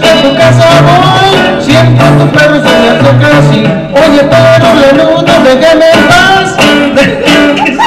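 Live band of two acoustic guitars and an electric guitar strumming a song with a steady alternating bass, while a man sings the melody into a microphone.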